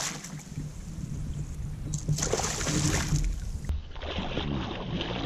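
Hooked northern pike thrashing at the water's surface beside the boat, with two bursts of splashing, one right at the start and another about two seconds in.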